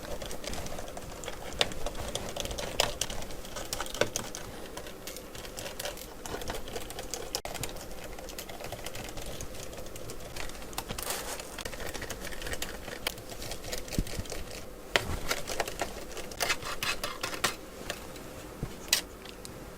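Screwdriver taking screws out of the plastic underside of a Medion E2291 laptop: a long run of small clicks, ticks and rattles in quick clusters, with a few sharper taps.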